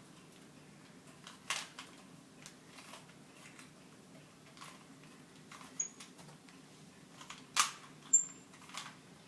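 Plastic Rubik's cube being turned by hand: irregular small clicks as its layers are twisted, with two louder clicks close together about three-quarters of the way through.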